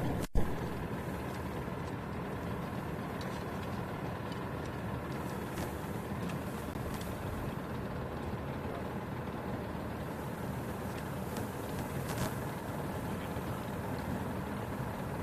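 A shingle roof mock-up burning, with a few faint crackles over a steady low rumble. A sharp click comes right at the start.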